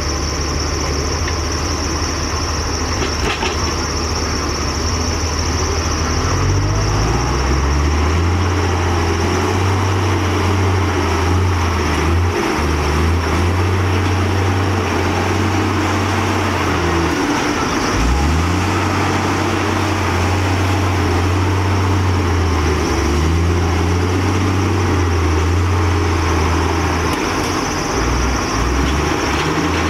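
Heavy diesel engines of a Komatsu D58E bulldozer and a mired dump truck running hard under load as the dozer pushes the truck out of deep mud. The engine note rises about six seconds in and holds, with two short dips partway through.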